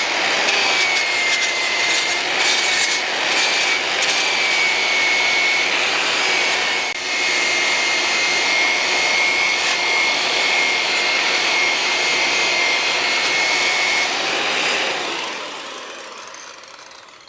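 Power tool working steel with a loud steady hiss and a high whistle. It shuts off near the end and winds down gradually.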